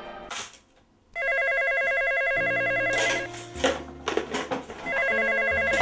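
Corded telephone ringing with an electronic ring: two rings, each about two seconds long, with a short pause between them.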